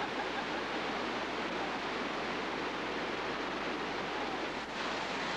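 Steady rush of whitewater pouring over a rock cascade into a river pool.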